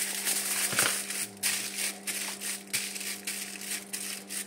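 Aluminium foil being crinkled and folded around a rack of ribs as they are wrapped, in irregular bursts of crackling.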